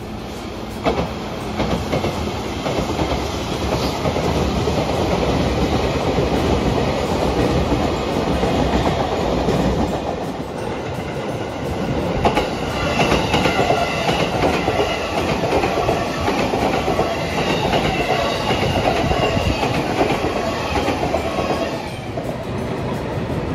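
A train running past on the tracks: a steady rumble of wheels on rail with a sharp knock about a second in, growing louder and brighter about halfway through before easing near the end.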